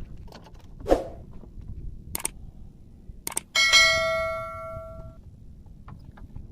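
A few light clicks and a knock, then a single metallic ring, like a struck bell, that fades over about a second and a half.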